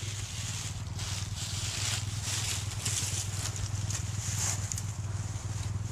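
Rustling and crunching of brush and dry leaves, coming and going, over a steady low hum.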